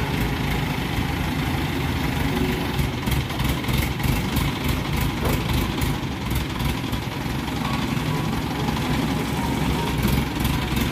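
Diesel engine of an ACE 14XW pick-and-carry hydra crane running steadily while the crane hoists a slung load of aluminium ingots off a truck.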